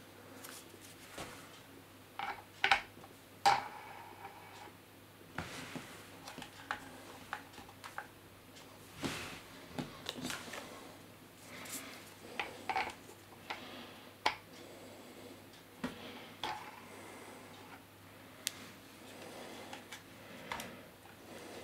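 Scattered plastic clicks and knocks as propellers are handled and twisted onto a DJI Phantom 3 Standard drone's motors. The loudest knocks come about three seconds in.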